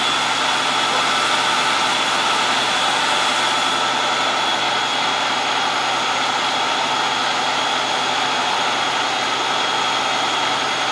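Fire engine running steadily with its pump feeding charged hose lines: a constant engine and pump hum with several steady whining tones.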